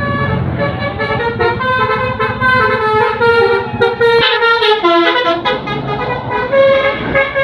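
A bus's 'telolet basuri' multi-tone horn playing a melody, its notes stepping from one steady pitch to the next, several sounding at once, over a low rumble.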